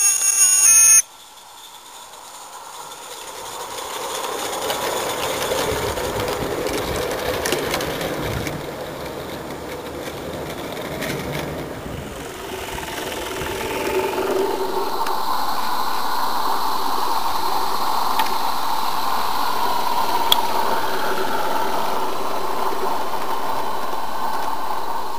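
Small live-steam garden railway locomotives running on their track. A loud high-pitched squeal lasts about a second and cuts off suddenly, then a steady noisy running sound builds up from about three seconds in.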